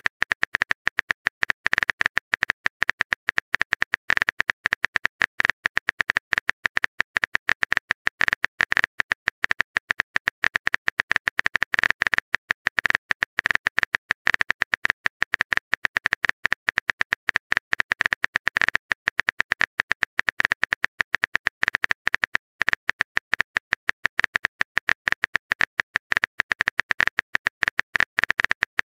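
Phone keyboard key clicks as a message is typed, a fast, steady stream of short sharp ticks, many a second.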